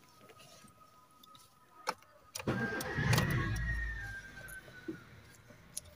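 A Honda car's engine being started: a click, then about half a second later the starter cranks and the engine catches and runs, dropping to a steady idle about two seconds later.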